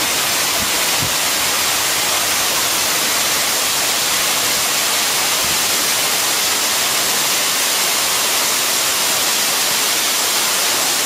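Waterfall pouring down a rock face: a steady rushing hiss of falling water.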